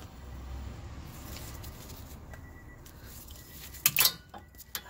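Low handling rumble as the axle shaft is turned by hand, then a few sharp metal clicks about four seconds in, and one more near the end, as the ratchet and socket go back onto the next flange bolt.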